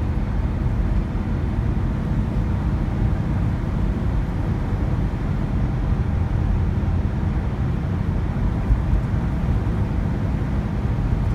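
Steady low rumble of engine and tyre noise heard from inside a vehicle's cabin while it drives at highway speed.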